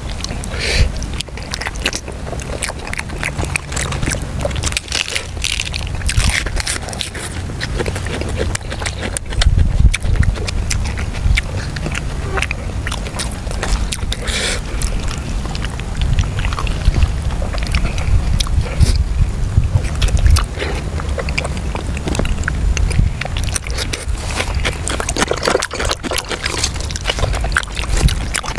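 Close-up sounds of a person eating soft stewed pork: wet chewing and smacking with many small clicks, over a steady low rumble.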